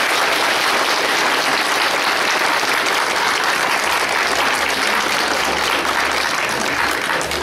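Large crowd of schoolchildren applauding, a dense and steady clapping.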